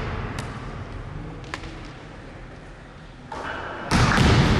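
Quiet gymnasium hall ambience with a couple of faint knocks. About four seconds in, the loud noise of the game cuts in abruptly.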